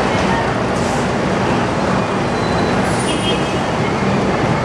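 Bus engine idling with a steady low rumble, standing at the boarding bay while passengers climb on.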